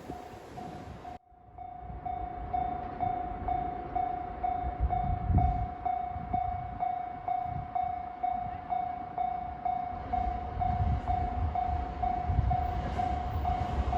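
Level-crossing warning bell ringing in steady, evenly spaced strokes, with a train's low rumble underneath that grows stronger near the end. The sound cuts out for a moment about a second in.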